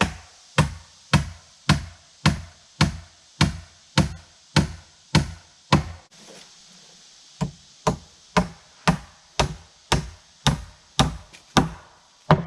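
Hammer driving nails into rough-cut wooden boards: even blows about two a second, a break of about a second and a half near the middle, then a second run of blows.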